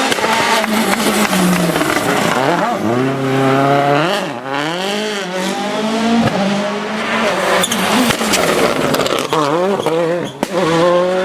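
Rally car engine revving hard at full throttle, its pitch repeatedly climbing and dropping through gear changes and lifts as the car passes on a special stage, with a couple of sharp cracks.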